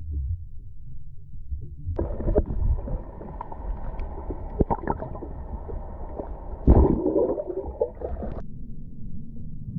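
Water heard through an underwater camera's housing: a muffled low rumble that turns brighter with sloshing and clicks about two seconds in as the camera nears the surface, and a loud splash about seven seconds in as a tarpon lunges at hand-fed bait. The sound drops back to a dull underwater rumble near the end.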